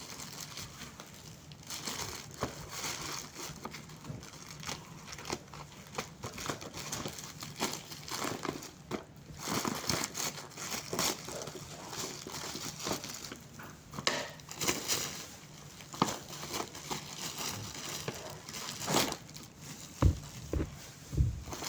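Packaging crinkling and rustling as it is handled and opened, with dense irregular crackles and two louder knocks near the end.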